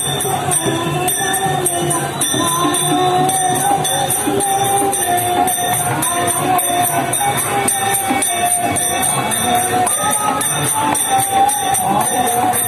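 Procession music: a sustained, wavering melody over a fast, even beat of jingling metal percussion, about three strokes a second.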